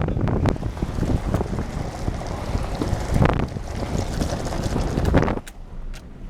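Vehicle driving on a bumpy gravel back road: a steady rumble of tyres and road noise with many knocks and rattles from the jolting. It drops away sharply about five and a half seconds in.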